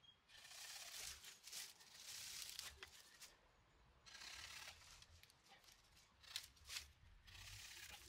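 Faint rustling and scraping of a thin wooden branch being handled and shifted through dry brush and leaves, in a few short bursts, with a couple of small clicks near the end.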